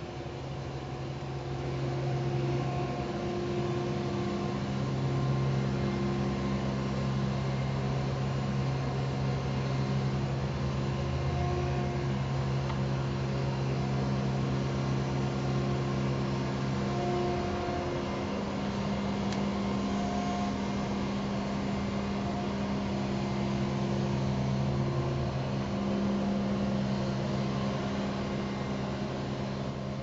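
Ride-on litter vacuum cart running, its engine and suction blower giving a steady mechanical hum as it vacuums litter through the big overhead hose. The engine note shifts up and down a little now and then.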